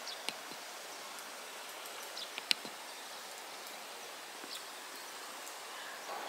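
Quiet outdoor rural ambience: a steady hiss of air and rustling leaves, with a few brief faint ticks, the sharpest about two and a half seconds in.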